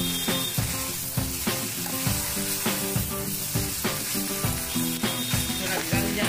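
Moringa-leaf saag sizzling in a kadai while a slotted steel spatula stirs and scrapes through it, with background music playing over it.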